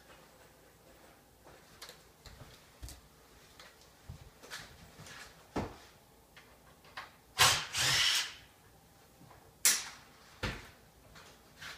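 Scattered knocks and clatter from hand work with tools and lumber, with a louder burst about a second long a little past halfway and two sharp knocks after it.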